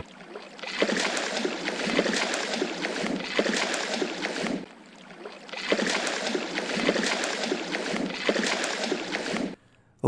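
A hooked fish thrashing and splashing in shallow water at the pond's edge while being fought to the bank, a rapid churning of the water surface. It comes in two long spells with a brief lull about five seconds in, and stops shortly before the end.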